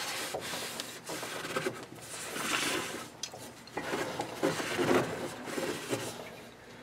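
Cloth rag wiping and rubbing the inside of a condensing boiler's metal heat exchanger, in irregular swishing strokes that fade near the end.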